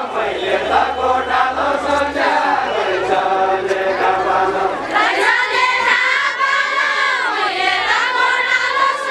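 A group of women singing a deuda, the far-western Nepali folk song, in unison. About five seconds in the singing gets louder and higher as the next line is taken up.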